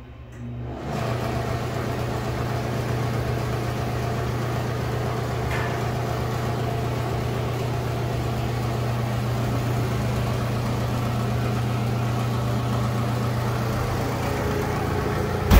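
Loren Cook restroom exhaust fan switching on about a second in, reaching full speed quickly, then running loudly and steadily with rushing air over a low hum. The uploader calls this fan noisy and rattly and thinks the grille may have been hit. A brief knock sounds at the very end.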